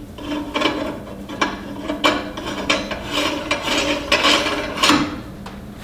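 Threaded locking ring being turned by hand onto the metal head of a Cabela's Carnivore meat grinder: a series of short gritty metal-on-metal scraping strokes, about two a second.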